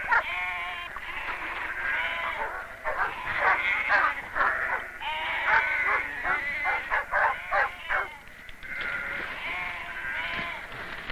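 A flock of sheep bleating, many calls overlapping, each with a wavering pitch, with a brief lull about eight seconds in.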